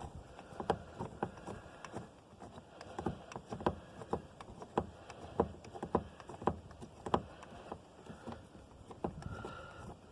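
Irregular metal clicks and knocks, about two a second, from the jack-handle bars turning the spare-tire winch of a 2006 Dodge Ram 2500 as it is cranked tighter.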